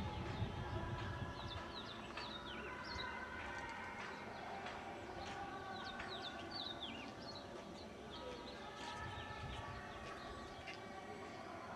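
Small birds chirping: many short, high, quick calls overlapping.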